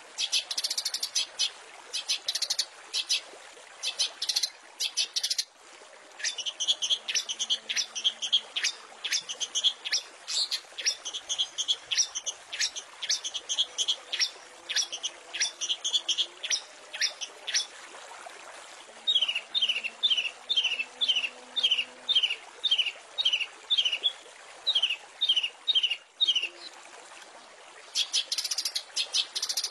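Long-tailed shrike (cendet) singing a fast series of sharp chirps, then about two-thirds of the way through a run of quick falling whistled notes, about three a second, over a faint steady hiss.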